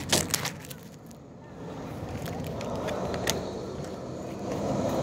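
A few sharp clicks and knocks of a wooden instrument case being handled, then a steady outdoor rumble that swells after a second or two, with an odd tick over it.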